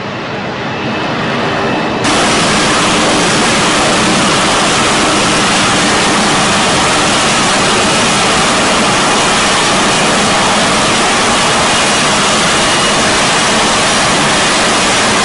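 Loud, steady roar of jet engine noise. It builds, then jumps up sharply about two seconds in and holds at full strength.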